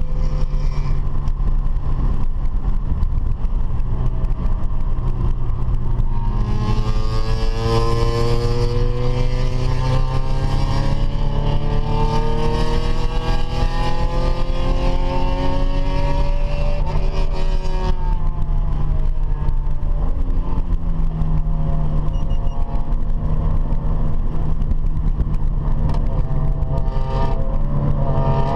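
Car engine running steadily, then accelerating hard about six seconds in, its pitch rising slowly for about ten seconds before dropping back. A hiss rises with the acceleration and stops when it ends.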